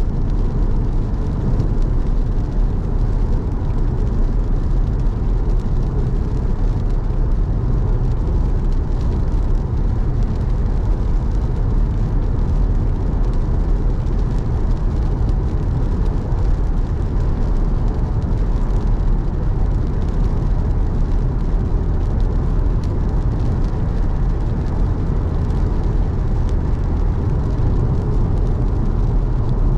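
Car driving on a rain-wet road: a steady rumble of tyres and engine, unchanging throughout.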